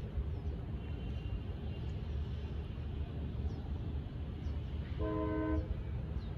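A train horn gives one short blast of a multi-note chord, well under a second long, about five seconds in, over a steady low rumble.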